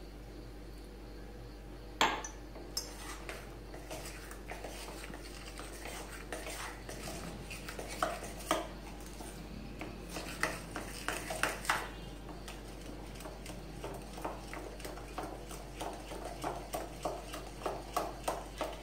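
A spoon stirring chocolate waffle batter in a bowl, clinking and scraping against the bowl's side. A sharp clink comes about two seconds in, and in the second half the strokes settle into a steady rhythm of about three clinks a second.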